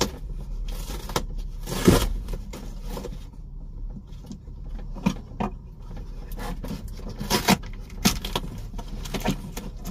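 Plastic wiring-harness clips being pried up and pulled free from a car headliner: scattered sharp clicks and snaps with rustling of the wire and headliner board, and a louder rustling scrape about two seconds in.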